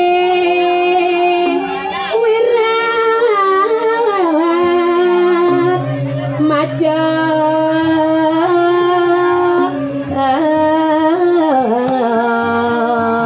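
A solo voice singing a slow, ornamented melody in long held notes that bend and slide between pitches, over steady held instrumental accompaniment.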